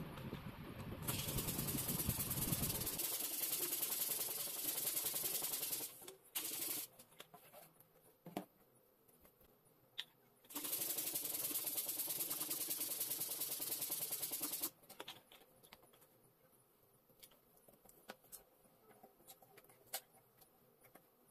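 Air hissing through a hand balloon pump as a latex balloon is inflated, in two stretches of about four to five seconds each. Scattered small clicks and taps follow as the balloon is handled.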